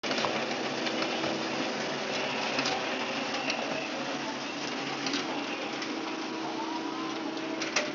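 Konica Minolta magicolor 3730DN colour laser printer running a print job: a steady mechanical whir with a low hum, broken by scattered light clicks, the sharpest near the end.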